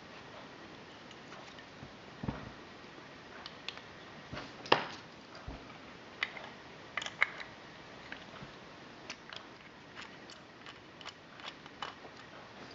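Irregular small clicks and taps of a screwdriver working small screws in a View-Master Model D viewer, with a few sharper knocks, the loudest about five seconds in.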